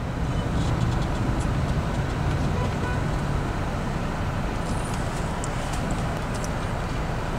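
Steady engine and road noise of a car being driven through city traffic, heard from inside the cabin as a low, even rumble.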